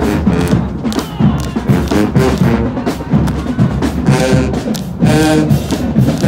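High school marching band playing: the drums beat out a steady rhythm, and the brass horns come in with loud chords from about four seconds in.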